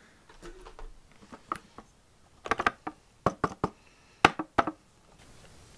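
Cardboard lure box being handled and opened: a run of sharp clicks and taps with light scraping, thickest from about two and a half seconds in for around two seconds.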